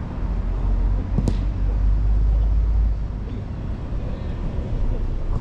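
A low rumble, heaviest for the first three seconds, with a single sharp knock of a ball being struck about a second in, and faint distant shouts from players.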